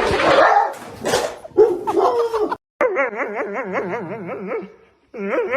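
A dog howling in long drawn-out calls whose pitch wobbles quickly up and down, after a short burst of noise at the start.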